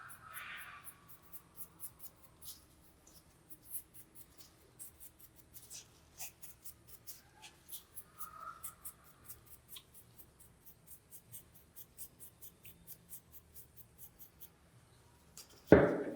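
Quick, light scratching strokes, several a second, as a part is worked by hand, scraped or rubbed. A single loud sudden sound comes near the end.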